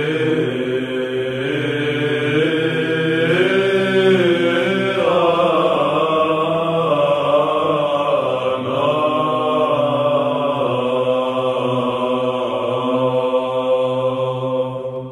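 Byzantine choir chanting: a steady low held drone sung under a slowly moving melody line. It fades out at the very end.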